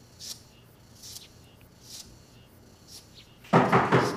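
A few faint ticks, then about three and a half seconds in a sudden burst of four or so rapid, loud knocks on a door.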